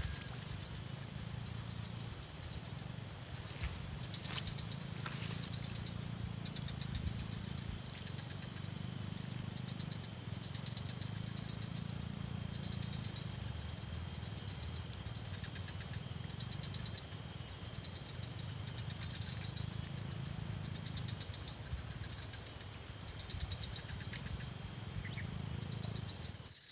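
Steady high-pitched insect drone, with short chirping trills repeated over it and a low rumble underneath. A few clicks come about four to five seconds in.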